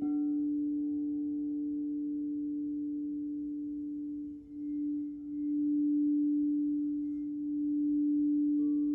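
Crystal singing bowls ringing in long, overlapping tones. A bowl is struck right at the start, the sound swells and dips in loudness through the middle, and another tone joins just before the end.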